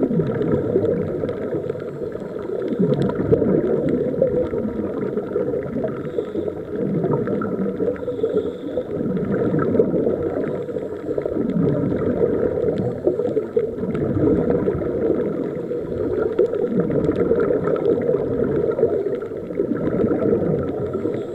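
Scuba regulator exhaust bubbles gurgling, heard underwater through a camera housing as a muffled rumble that swells with each exhalation.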